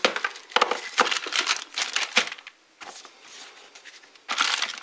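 Clear plastic bag holding a charger and cables crinkling as it is handled, in short irregular crackles, with a quieter lull in the middle and a denser bout of crinkling near the end.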